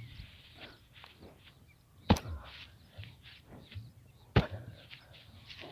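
Bare feet thudding on dry grassy ground: a sharp thump about two seconds in and another about four and a half seconds in, the second the landing of a backflip, with soft footfalls between.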